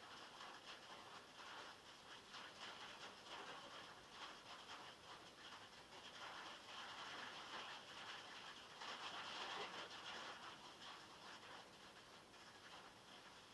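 Rain falling on a metal roof, heard from inside a log shed: a dense, steady patter of drops that swells a little louder twice, around the middle and again a few seconds later.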